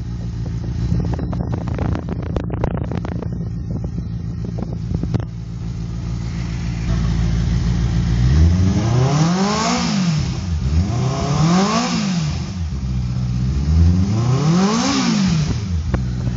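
Benelli 600i's four-cylinder engine through its stock exhaust, idling steadily, then revved three times, each rev rising in pitch and falling back to idle.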